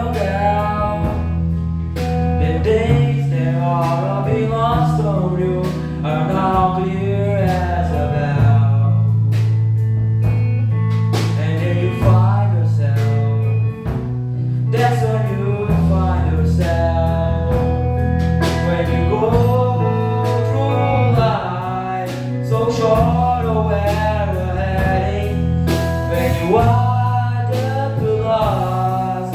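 Live band playing a song with a lead singer, over guitar and long sustained bass notes, at a band sound check.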